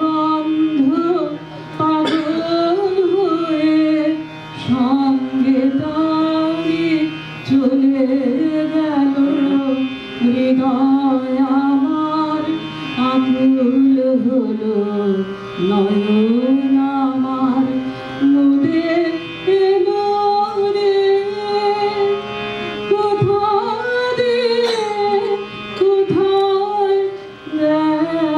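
A woman singing a slow Bengali song to her own harmonium accompaniment. Her voice glides and ornaments over the harmonium's held notes, in phrases with brief breaths between them.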